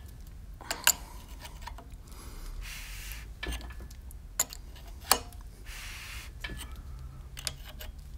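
Scattered sharp metallic clicks and taps, loudest about a second in and again around four and five seconds in. They come from a wrench on the crankshaft bolt as a freshly assembled 408 small-block Mopar short block is turned over by hand through its new timing chain and sprockets.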